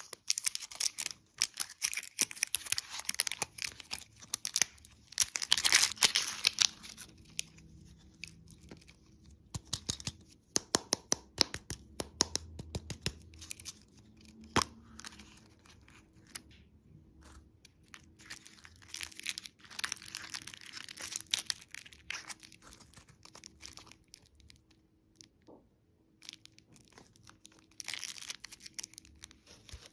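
Crinkling and tearing of candy packaging, in irregular crackly bursts with short pauses between them.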